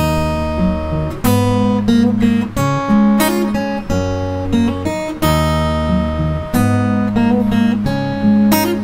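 Acoustic guitar tuned down a half step, fingerpicked through a G, E minor, A minor, D chord progression with hammer-ons. Each chord starts on a ringing bass note under picked high strings, and the chord changes about every second and a half.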